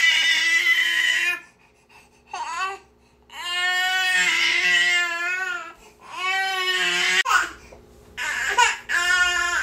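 A baby crying: a run of long, high wails, each a second or two long, broken by short gasps for breath, with choppier, shorter cries near the end.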